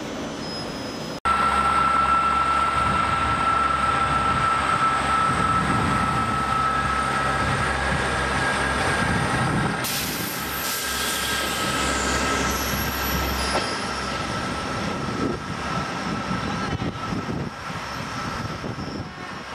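Class 158 diesel multiple unit passing slowly, its diesel engine running with a low drone and a steady high whine that sinks slowly in pitch. The sound starts abruptly about a second in, and the engine drone fades about two-thirds of the way through as the train moves off.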